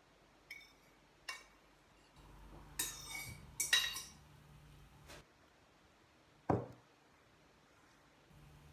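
A metal fork clinking and scraping against ceramic dishes as fennel salad is served: about six separate clinks, the loudest a little before the middle. Near the end comes a heavier clink with a thud, a ceramic bowl set down on the table.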